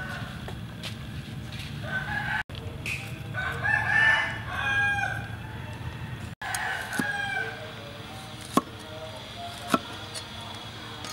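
A rooster crowing several times, the loudest crow about four seconds in. Near the end come two sharp knocks of a cleaver chopping on a wooden board.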